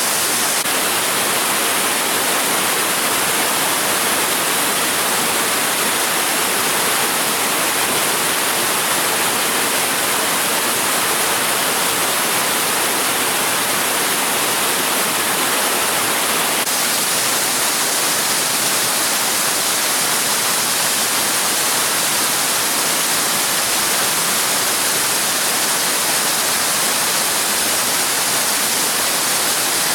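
Steady, loud rush of water falling at a spring-fed waterfall.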